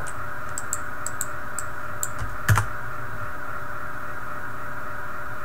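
Computer keyboard keystrokes: a few quick, light key taps in the first two seconds, then one heavier keystroke about two and a half seconds in, over a steady background hum.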